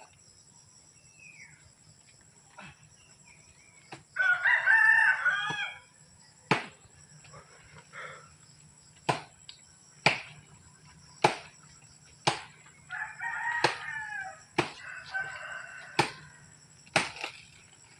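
Rooster crowing: a loud crow about four seconds in, then two more in a row near the end. Sharp knocks come about once a second between them, over a steady high insect drone.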